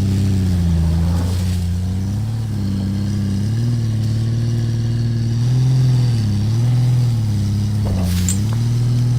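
Car engine running and being revved, its pitch rising and falling several times in small swells. There is a brief click about eight seconds in.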